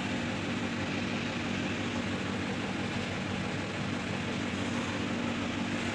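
Dental chair's hydraulic pump motor running with a steady hum, driving the backrest.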